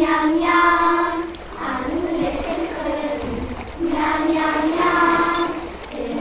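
Singing on a music soundtrack: sung voices holding long notes in two phrases, the second starting about four seconds in, with softer singing between.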